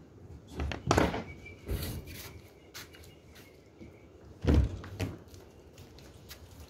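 A few dull thumps and knocks. One comes about a second in, another just before two seconds, and the loudest pair falls a little past the middle.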